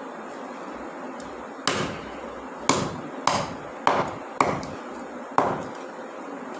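Heavy cleaver (toka) chopping into a large whole fish: six hard blows, about half a second to a second apart.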